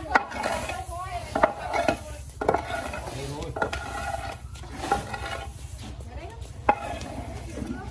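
Cooking utensil stirring food in a metal pot, with sharp clinks or knocks against the pot at irregular intervals, about one a second.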